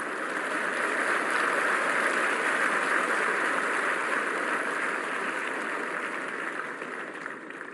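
Large audience of students applauding and laughing; the clapping builds over the first couple of seconds and dies down near the end.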